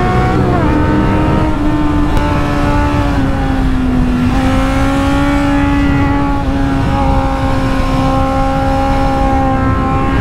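Kawasaki Z800 inline-four with an aftermarket HP Corse exhaust, heard from on the bike at speed: the revs drop about half a second in, then the engine pulls at nearly steady revs that creep up toward the end, with wind rush on the microphone.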